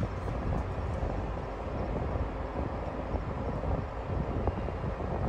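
Toyota 4Runner's engine running steadily at idle while the SUV sits stuck on a rocky climb, its rear wheels short of grip, with a low rumble and outdoor wind noise.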